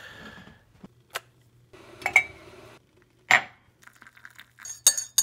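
Tea being made: a spoon and ceramic mug clinking and knocking on a stone counter, with a handful of separate sharp clinks spread through and a quick run of them near the end.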